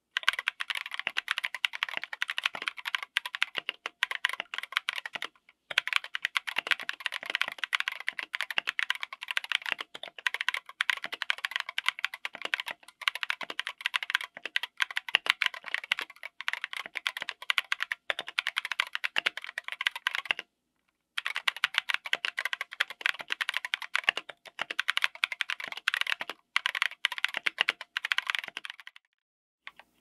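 Fast typing on a mechanical keyboard with stock Novelkeys x Kailh Cream linear switches, Maxkey SA doubleshot ABS keycaps, an FR4 plate and a Tofu60 aluminium case: a dense, continuous run of keystrokes. It breaks off briefly about five seconds in and again about twenty seconds in, and stops about a second before the end.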